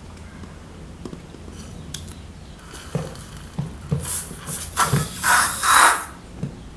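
Slime and balloons being handled: a run of wet, crackling, hissing squishes and rubs between about three and six seconds in, loudest just before the end.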